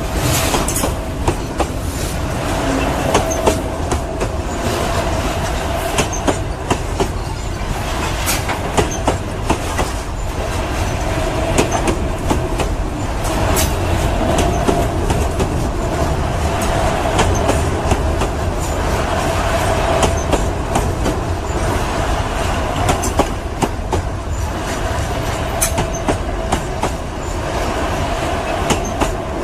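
Grain freight train rolling on the rails: a steady rumble with wheels clicking over the rail joints, and a squeal from the wheels that comes and goes.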